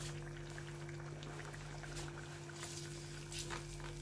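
Chili sauce mixture in olive oil sizzling faintly in a pot on the stove, with scattered small crackles, over a steady low hum.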